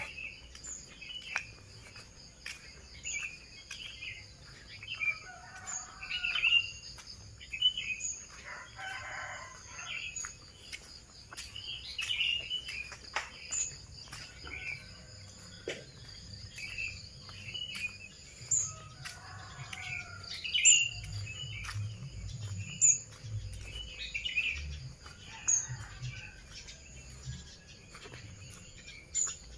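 Birds chirping in a dawn chorus, with roosters crowing a few times and a steady high insect trill behind them. Footsteps and handling knocks come and go.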